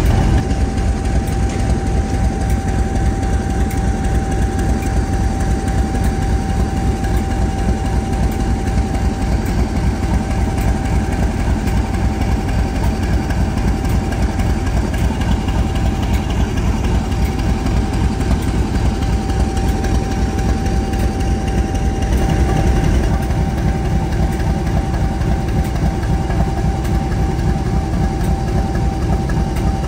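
Class 50 diesel locomotive's English Electric 16CSVT V16 engine idling at a standstill: a steady low beat with a constant whine above it.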